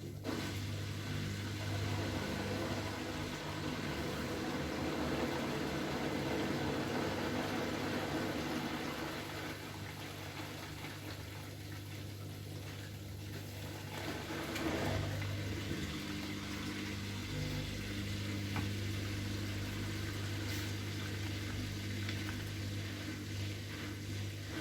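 Bosch Maxx WFL 248Y front-loading washing machine running, its motor humming steadily as the drum turns while it tries to balance the load before spinning, with a brief swell about halfway through.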